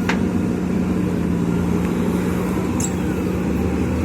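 Diesel engine of a JCB backhoe loader running steadily at a constant pitch. Two brief high-pitched ticks sound, one just after the start and one near three seconds in.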